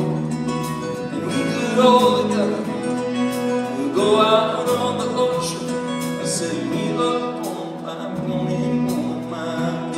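Live acoustic guitar accompanying a man singing a slow country-style song.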